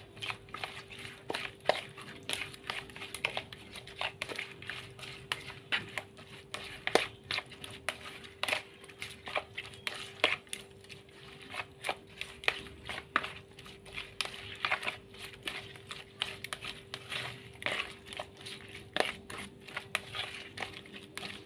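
Silicone spatula stirring peeled raw shrimp with egg and seasonings in a bowl: irregular wet squelching with frequent light clicks.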